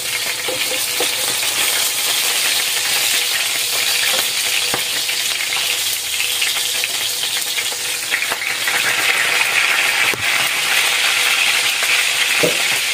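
Chicken leg quarters sizzling in hot oil in a frying pan, really loud, with a few light clicks as the pieces are turned with tongs. The chicken was steamed first and is being fried to crisp the skin.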